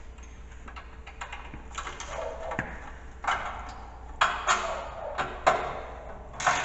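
A string of short, light metal clicks and knocks, coming faster in the second half, as washers and spring hardware are handled on a snow plow mount.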